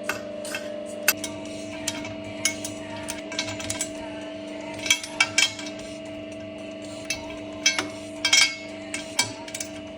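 Irregular metal knocks and clinks of tools on a car wheel rim being straightened, over a steady electric machine hum.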